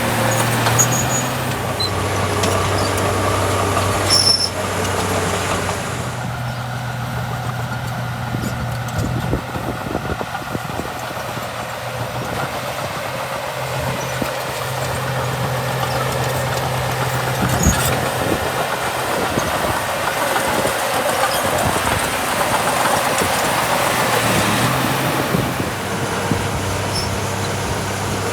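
Small crawler bulldozer's diesel engine running under working load, its pitch stepping up and down several times, with a few sharp high squeaks and knocks from the machine.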